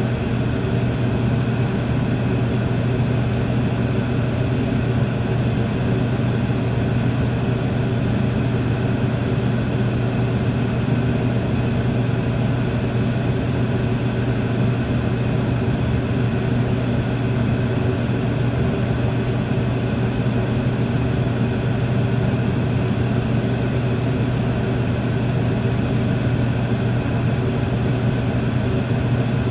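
Room tone: a steady, unchanging low hum over an even hiss, with no distinct events.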